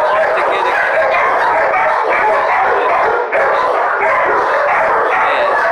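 Dogs in shelter kennels barking and yipping together in a continuous din.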